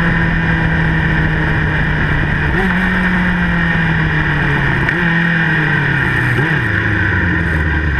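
Motorcycle engine heard from the rider's seat while the bike slows: its note falls steadily, with three brief rises in pitch, each followed by a slow fall, as it is geared down. Steady wind rush runs underneath.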